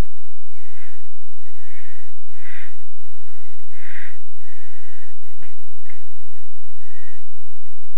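Barn owls giving repeated hissing, snore-like calls: about six rasping bursts of around half a second each, over a steady low hum, with two sharp clicks past the middle.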